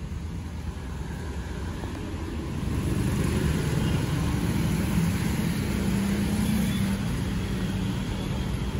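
Street traffic: motorcycle and car engines running, with a low rumble that grows louder about two and a half seconds in.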